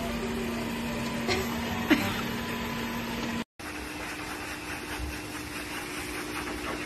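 Robot vacuum cleaner running with a steady hum, with a couple of sharp clicks as it moves. After a sudden cut, a different steady motor whir from a grooming hose held against a pug's coat.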